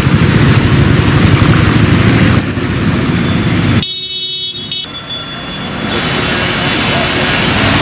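Road traffic on a flooded street: motor vehicles running through standing water, engine noise mixed with the wash of tyres in the floodwater. The sound is loud and steady, dropping quieter for a moment about four seconds in.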